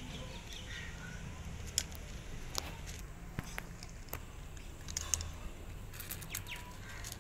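Calico cat crunching dry kibble from a plate: sharp, irregular crunches a few times a second.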